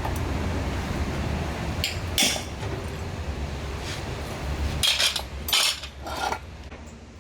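Metal clinking and knocking as tools and metal parts strike each other during a repair: a few separate sharp, ringing clinks, the loudest about two seconds in and a cluster around five to six seconds in, over a steady low hum.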